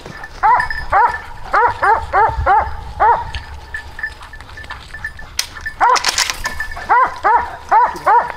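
Hunting dogs barking in quick series, two to three barks a second, with a pause in the middle. There is a short, sharp noise about six seconds in.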